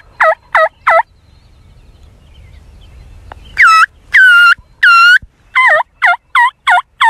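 Turkey call sounded close by. It gives three short yelps, each falling in pitch, then a pause of more than two seconds. After that come three longer, higher notes and a run of five more falling yelps.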